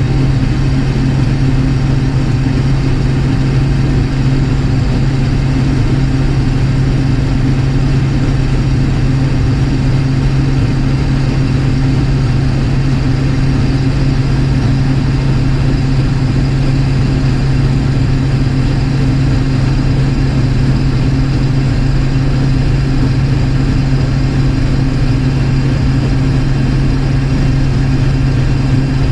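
Combine harvester running steadily with its threshing rotor engaged, a constant, unchanging low hum.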